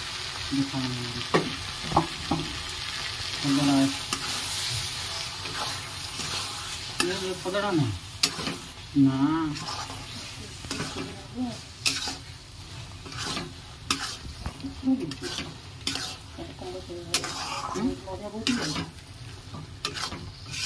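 Flat metal spatula stirring and scraping pointed gourd curry with ground coconut paste in a metal kadai, the mixture sizzling as it fries. Many short scrapes and clicks of the spatula against the pan over a steady sizzle.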